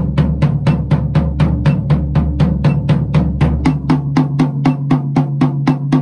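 Acoustic drum kit played with wooden sticks: an even, steady stream of alternating single strokes around the snare and toms, with the low ring of the floor tom under the first part.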